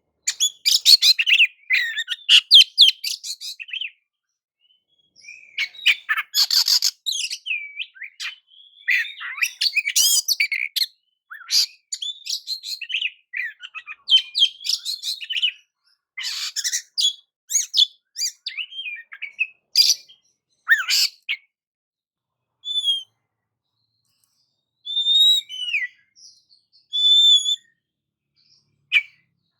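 Oriental magpie-robin (kacer) singing: fast bursts of varied chirps, whistles and harsh rasping notes, with short pauses between phrases. From about two-thirds of the way through it thins to a few short whistled notes.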